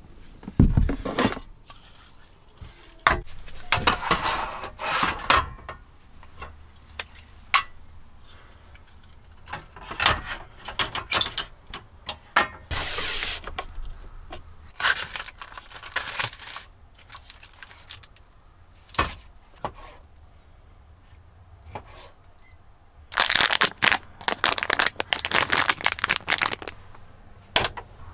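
A frying pan, cookware and plastic storage boxes clattering, knocking and scraping in irregular bursts, with stretches of rustling, as a camping kitchen and portable gas stove are unpacked and set up.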